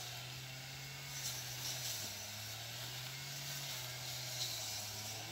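Faint rustling and swishing of tall grass stalks as someone wades through them. Under it runs the steady low drone of a distant brush-cutter engine, which dips slightly in pitch about two seconds in.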